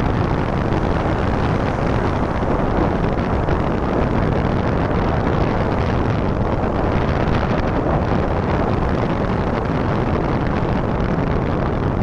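Steady wind rush and road noise from riding a motorbike, the wind buffeting the microphone.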